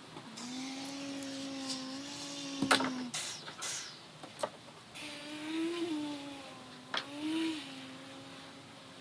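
A five-year-old child imitating a car engine with their voice: a long, steady drone, then after a short break a second drone with two quick rises in pitch. A sharp click cuts in about three seconds in.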